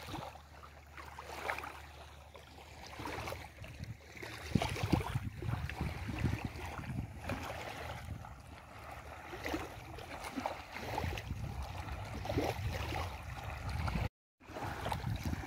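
Wind buffeting the microphone, heavier from about four seconds in, over small river waves lapping at a sandy bank. The sound cuts out briefly near the end.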